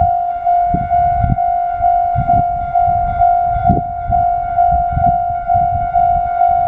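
Japanese railway level-crossing electronic warning bell ringing, a steady tone repeated about twice a second, with irregular low rumbles underneath.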